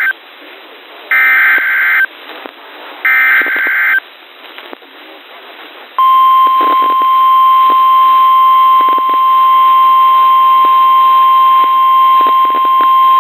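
Emergency Alert System SAME header data bursts, harsh one-second screeches about a second and three seconds in. About six seconds in they give way to NOAA Weather Radio's single steady warning alarm tone, held to the end, heard over a radio receiver with static crackle. This sequence signals that a warning is being broadcast.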